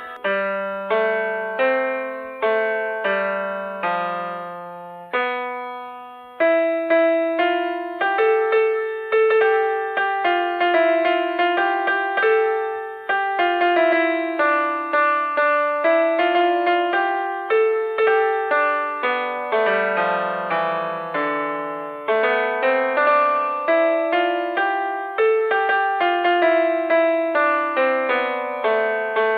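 Background music: a piano or electric-piano melody of struck notes that each fade out, with a brief lull and then a louder entry about six seconds in.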